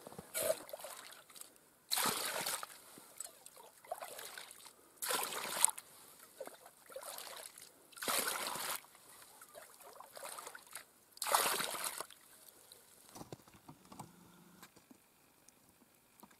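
Water scooped with a ladle from a hole in the lake ice and poured into a plastic bucket. The splashing pours come in short bursts, about one every three seconds.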